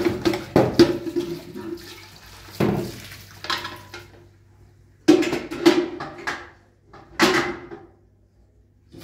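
Tap water gushing and splashing into a large steel cooking pot in a metal sink as it is rinsed, coming in several bursts, with clanks of the metal pot.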